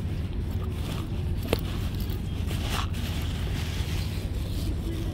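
A grey fabric bag being handled: a sharp click about a second and a half in, then a short zip-like rasp about three seconds in. Steady low wind rumble on the microphone underneath.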